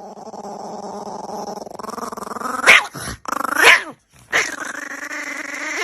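Dog growling in long, steady low rumbles, broken by two short, sharp barks, one about two and a half seconds in and another about a second later.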